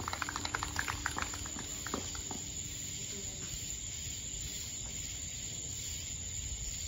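Scattered clapping from a small audience, thinning out over the first couple of seconds, then a steady high-pitched chorus of night insects.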